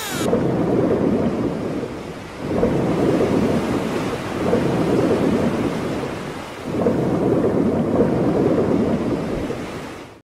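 Thunderstorm: rolling thunder over a steady hiss of rain, swelling in three long rumbles, then cutting off near the end.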